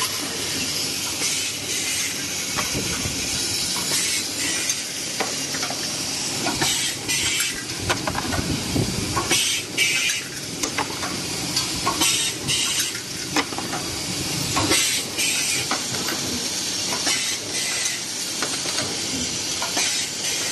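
Automatic wire spot welding machine working: irregular bursts of hissing and sizzling with many sharp mechanical clicks over a steady machine noise.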